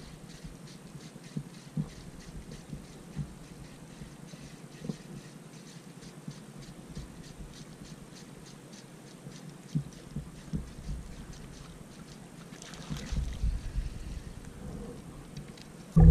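Spinning reel being cranked on a light fishing rod, ticking evenly about four times a second; the ticking stops about twelve seconds in. Soft knocks of water against an inflatable kayak's hull sound beneath it.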